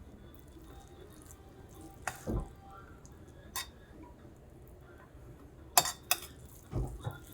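A serving spoon clinking and knocking against a metal pot and plate while cooked biryani is dished out, a few sharp clinks spread out with a quick pair near the end.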